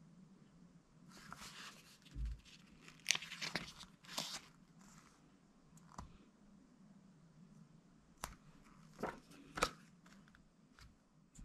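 Pages of a small paper instruction booklet being turned and handled: a run of rustles in the first half, then a few short, sharp paper flicks.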